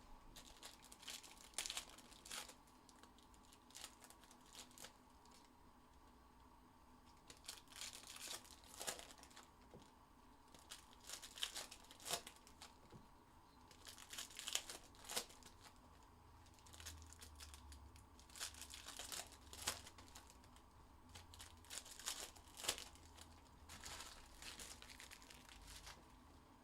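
Faint plastic wrappers crinkling and tearing as packs of 2021 Panini Chronicles Baseball trading cards are ripped open. The crinkling comes in short rustling bursts every few seconds.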